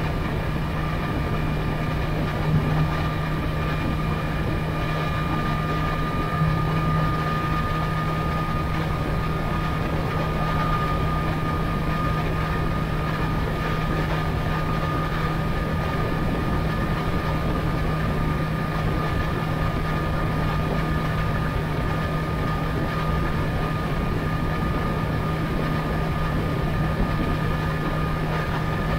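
Sportbike engine droning steadily while cruising in sixth gear at about 72–74 mph, with a thin steady whine above it, under a constant rush of wind and road noise.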